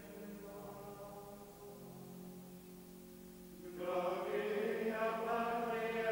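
Choral chant music of long held sung notes, quieter at first and swelling louder about four seconds in.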